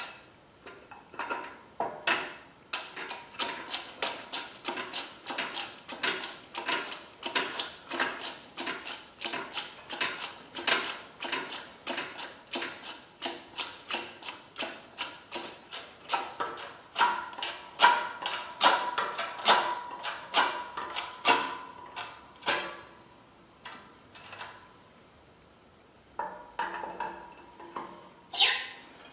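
A 12-ton hydraulic shop press being worked to crush steel roll cage tubing: a rapid, even run of metallic clicks and clinks, about three a second, stopping about 22 seconds in, with a few more near the end.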